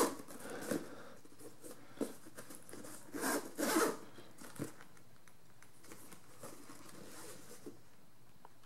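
Zipper of a Maven binocular case being zipped closed, with two short zip strokes about three seconds in, among light clicks and rubbing as the case is handled.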